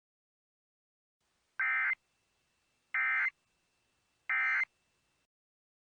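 Emergency Alert System end-of-message data tones: three short, identical buzzy bursts of digital SAME code, just over a second apart, marking the end of the alert message.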